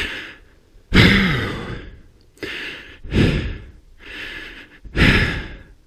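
A person breathing hard: about five loud, noisy exhales and gasps roughly a second apart. The loudest comes about a second in, with a falling voiced sigh.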